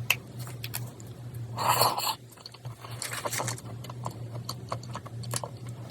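Close-miked mouth sounds of a person chewing food: soft wet clicks and smacks, with two louder noisy stretches about one and a half and three seconds in, over a steady low hum.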